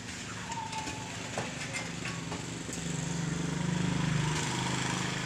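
A motor vehicle's engine running, growing louder about three seconds in and easing off near the end, as a vehicle passes on the road. A few light knocks are heard in the first half.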